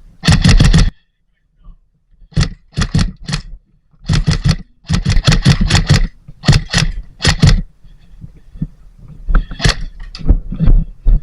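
Airsoft guns firing in rapid bursts: about eight short strings of quick shots, roughly ten a second, with brief pauses between them.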